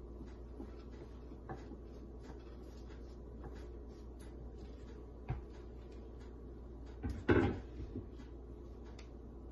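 Kitchen handling sounds: scattered light taps and clicks, a sharper tap about five seconds in, and one louder knock about seven seconds in, over a steady low hum.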